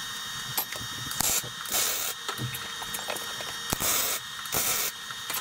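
Arc welder tacking a steel shock mounting tab to the kart frame: several short crackling bursts of arc, each under half a second, over a steady hiss.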